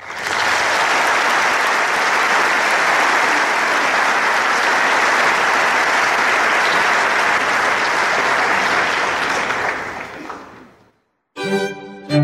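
Audience applauding steadily, fading out about ten seconds in. After a short silence, a string quartet of two violins, viola and cello starts playing near the end.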